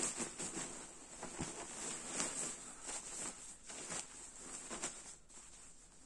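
Thin 20D polyester shell of a goose-down sleeping bag rustling and crinkling in irregular swishes as hands squeeze and fold it, growing quieter about five seconds in.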